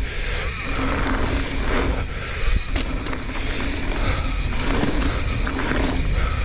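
Mountain bike descending a dirt trail: wind buffeting the microphone over a steady rolling rumble of tyres on dirt, with scattered knocks and rattles from the bike over bumps.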